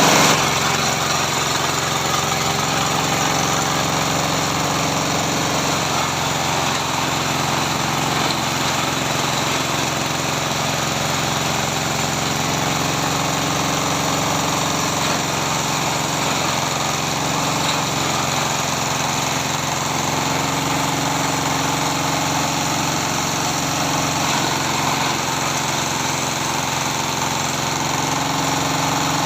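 Compost shredder machine running steadily under power, a constant mechanical drone that barely changes throughout.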